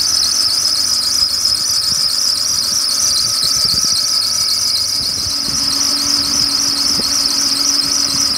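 High-pitched squeal from the accessory belt drive of a BMW 728i E38's idling inline-six engine, a steady shrill whistle with a slightly wavering edge. Workshops put it down to the drive belt, and the belt, idler pulley and belt tensioner are due to be replaced.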